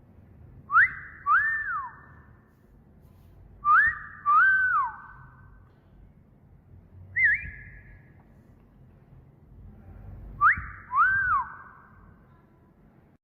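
A wolf whistle: a quick upward whistle followed by a rise-and-fall one, repeated three times, with a single shorter whistle between the second and third. Each whistle trails off in a short echo.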